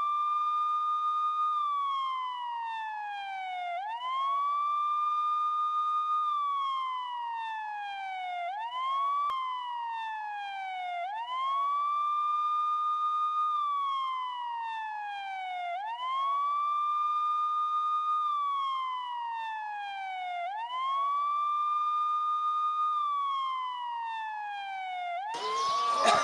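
A siren wailing in a slow repeating cycle: it rises quickly to a high pitch, holds it for about two seconds, then slides slowly down before rising again, about every four and a half seconds. A rush of louder noise joins in near the end.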